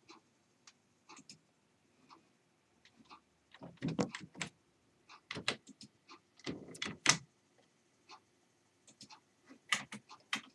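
Scattered short clicks and taps of a computer mouse and keyboard, with a few louder clusters of knocks and clatter about four, six to seven and ten seconds in.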